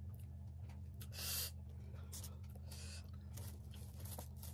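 A short, sharp intake of breath through the nose and mouth about a second in, from a person eating with her hands, with a few faint clicks of fingers working through rice and of chewing, over a steady low hum.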